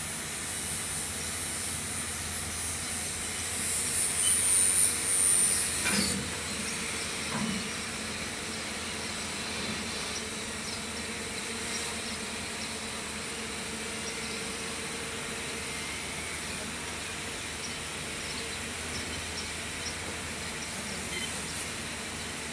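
Fuel poured from a plastic jerry can into the fuel filter of a welder-generator's engine, heard as a hissing trickle. It grows louder about four seconds in and stops abruptly a couple of seconds later with a knock, leaving a steady background hiss.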